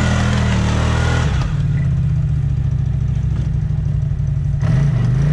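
Off-road vehicle's engine running at high revs while the vehicle is stuck in a rut and straining to climb out. Its note shifts about a second in and again near the end.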